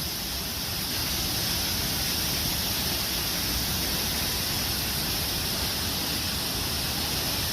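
Waterfall: a steady rush of falling water, even throughout.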